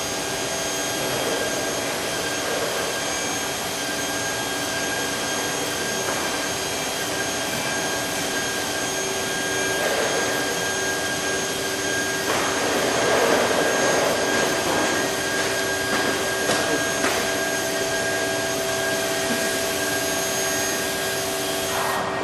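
Amada Wasino Meister G3 CNC surface grinder running: a steady rushing machine noise with several high, steady whining tones over it. The rushing swells louder for a few seconds in the middle.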